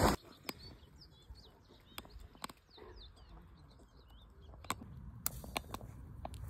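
Small birds chirping faintly in many short, high notes, with a few sharp clicks scattered through.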